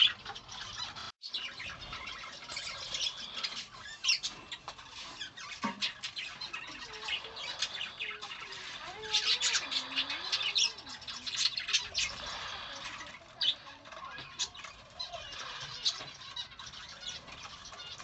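A flock of budgerigars chattering, with many short squawks and chirps overlapping.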